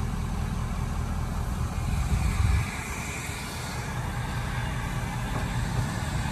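Wind buffeting the microphone, an uneven low rumble that swells about two seconds in and eases off soon after.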